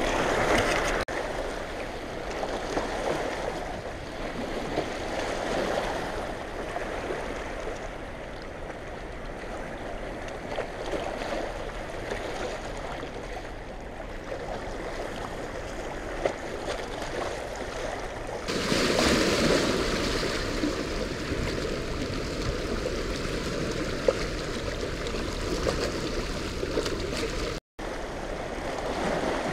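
Turbulent water rushing through a dam tailrace as a steady rush of churning outflow from a large flood release. It grows louder and brighter about two-thirds of the way through.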